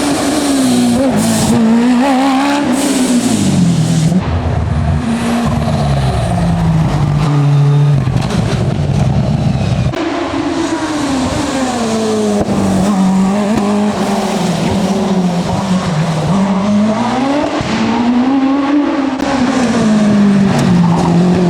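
Hillclimb competition car's engine driven hard, its revs repeatedly falling and climbing again as the car brakes, changes gear and accelerates. There is an abrupt break about eight seconds in before the engine note picks up again.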